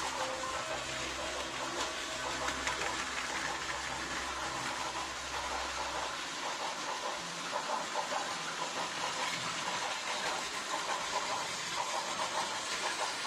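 Battery-powered Plarail toy trains running on plastic track: small electric motors whirring and wheels rattling over the plastic rails and points. A low hum drops out about six seconds in.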